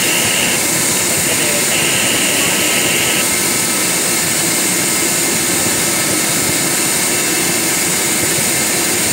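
Steady jet turbine noise from a Boeing 737 Business Jet being pushed back: a loud, even rushing hiss with a few thin steady tones that does not change.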